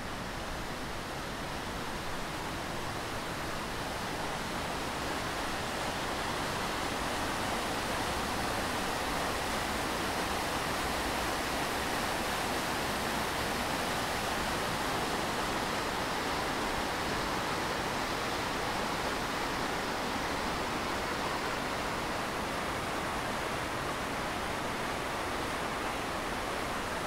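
Shallow river rapids rushing over rocks: a steady white-water rush that grows a little louder over the first several seconds.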